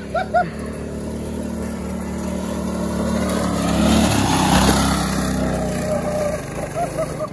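A go-kart's small engine runs as the kart drives past. It grows louder to a peak about halfway through, then fades.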